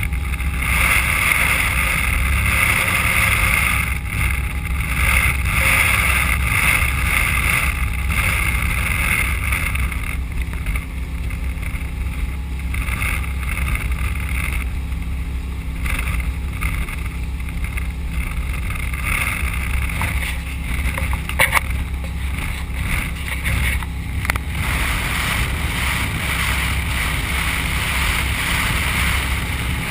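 Motorboat running underway: a steady low engine drone with a constant rush of water and wind. A few sharp knocks about two thirds of the way through.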